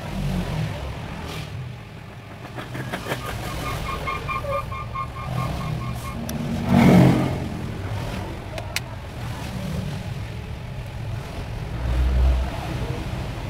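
Plastic clips of an Evercoss S45 phone's housing clicking and snapping as the frame is pried apart by hand, over background road traffic with a louder swell about seven seconds in.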